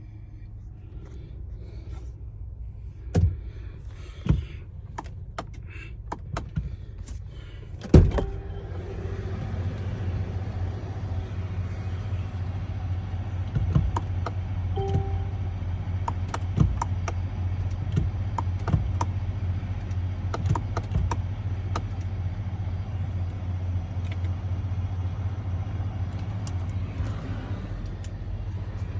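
A few clicks and knocks, then a loud thunk about eight seconds in, after which a vehicle's steady low engine and road rumble grows louder and runs on with scattered light ticks.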